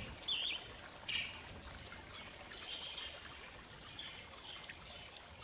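Garden fountain water trickling and splashing steadily at low level, with a short high chirp about a third of a second in.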